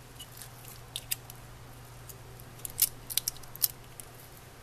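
Small sharp plastic clicks and light rubbing as gloved fingers press the release tabs of the plastic speaker housing on an HO-scale model locomotive's chassis, the clicks bunched about a second in and again around three seconds in. A faint steady low hum lies underneath.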